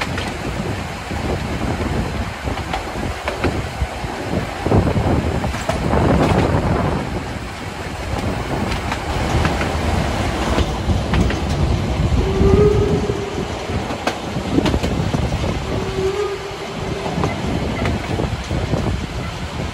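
Harz narrow-gauge steam train running, a steady rattle and clatter of wheels and coaches with a pulsing low beat. Two short steady tones sound a little past the middle, about two seconds apart.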